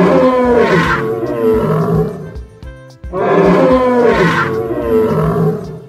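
Two long calls of an animated Brachiosaurus, a film dinosaur sound effect, the second beginning about halfway through, each sliding down in pitch, over background music.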